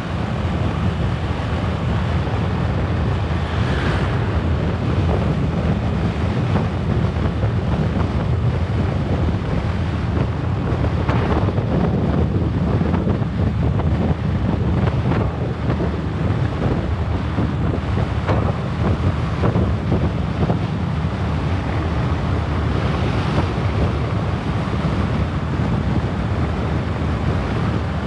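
Wind rushing over the microphone of a moving motorbike at riding speed: a steady low rumble.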